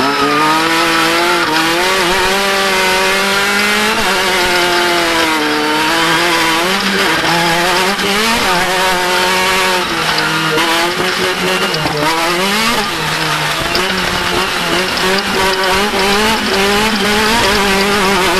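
Off-road race vehicle's engine running hard, its pitch climbing and falling again and again as the throttle opens and lifts, with deeper lifts about 4, 8 and 12 seconds in.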